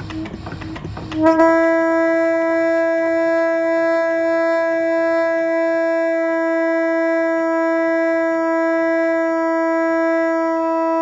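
Hand-cranked Norwegian Pattern fog horn, a boxed copper horn fed by bellows: about a second of clicking from the turning crank mechanism, then the horn sounds one loud, steady note that holds without a break as the handle keeps turning.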